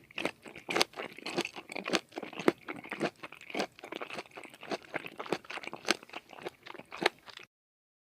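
Repeated crunching: irregular sharp crunches about twice a second with crackling in between. It cuts off suddenly less than a second before the end.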